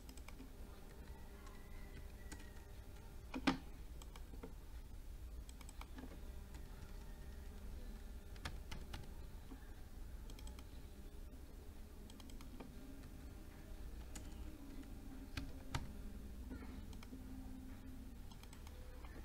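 Computer keyboard keystrokes and mouse clicks, scattered and irregular over a low hum, with a sharper click about three and a half seconds in and another near sixteen seconds.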